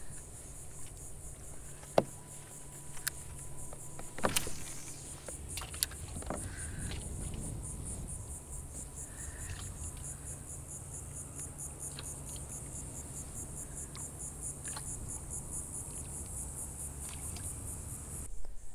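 Insects calling steadily in the marsh, a high, finely pulsing buzz over a low steady rumble, with a few sharp clicks, the loudest about two seconds in.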